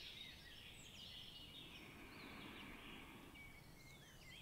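Near silence: faint bird chirps, short high gliding calls, over a low background hiss.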